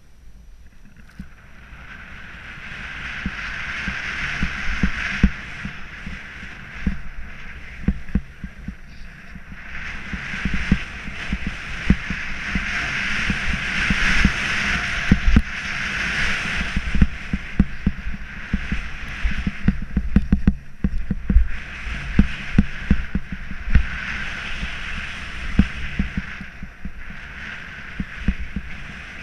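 Snowboard riding down a choppy, tracked-out slope: the board's edges hiss and scrape over the snow in swells that rise and fall with each turn. Frequent low knocks and rumble come from the board bumping over the chop and from wind on the camera's microphone.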